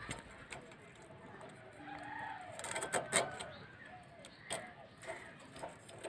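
Sharp scraping clicks of climbing perch being scaled and cut against a curved bonti blade, the strongest cluster about three seconds in. Bird calls sound in the background.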